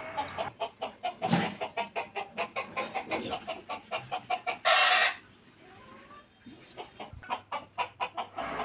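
Village chickens clucking in quick repeated clucks, with one loud, harsh burst about halfway through, then quieter before the clucking picks up again near the end.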